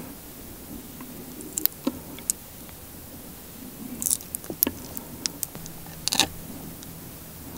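A piece of honeycomb squeezed and worked between the fingertips, its wax giving scattered short, sticky crackling clicks as honey is pressed out. A cluster of clicks about six seconds in, as a sticky toasted rice cake is picked up off the plate.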